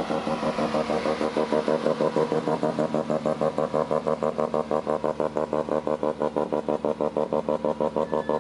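Mazda RX-3's rotary engine running at low revs as the car rolls slowly, with a steady, choppy exhaust note of about eight even pulses a second.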